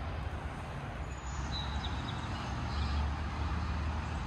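Steady low rumble of road traffic, with a brief faint high chirp about one and a half seconds in.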